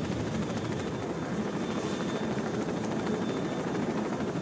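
Helicopter rotor chop and engine running steadily, a fast even beating over a dense low rumble.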